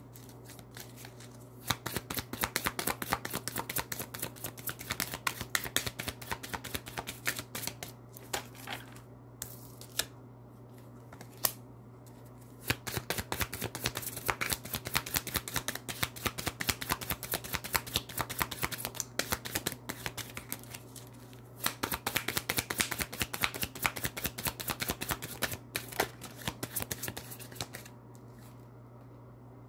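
A deck of oracle cards being shuffled by hand: three long runs of rapid card clicking with short pauses between, over a steady low hum.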